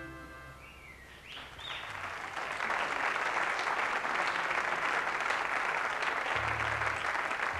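Studio audience applauding, with a few whistles near the start, as the last harmonica chord of a song dies away. A short low instrument note sounds near the end.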